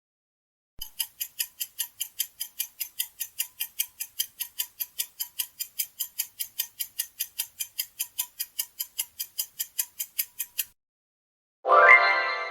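Countdown-timer sound effect: a clock ticking evenly, about four ticks a second, for about ten seconds. Near the end a louder pitched ringing tone comes in and fades.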